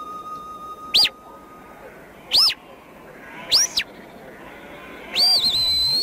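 A shepherd giving whistled commands to working sheepdogs: three short, high whistles that each rise and fall, the third with a quick follow-up note, then a longer whistle near the end that rises, wavers and holds before lifting at its close.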